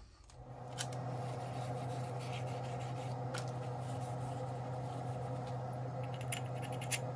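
Light scraping, rubbing and clicks of cleaning out the shim bore at the back of an LS crankshaft, over a steady hum that starts just after the beginning.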